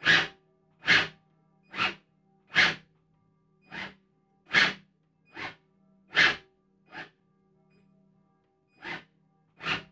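Hand-tool work on the plastic parts of a Tamiya MF-01X RC car kit: about eleven short scraping strokes, roughly one a second, with a pause of about two seconds near the end.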